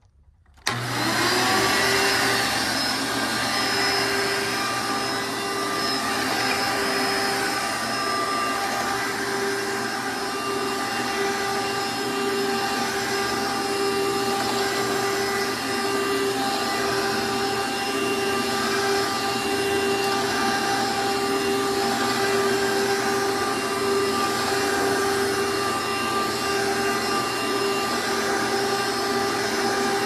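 1997 Hoover Legacy upright vacuum cleaner switched on about a second in, its motor spinning up to speed, then running steadily as it is pushed over carpet.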